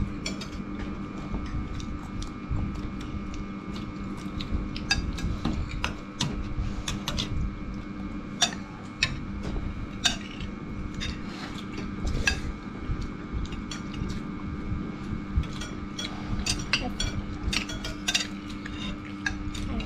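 Metal spoons clinking and scraping against ceramic bowls, in irregular sharp clicks, over a steady low hum.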